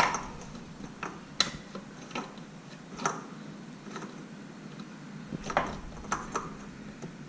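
Pliers clicking and tapping against a new oil filter as it is tightened onto a mower engine: a few separate metal clicks, irregularly spaced.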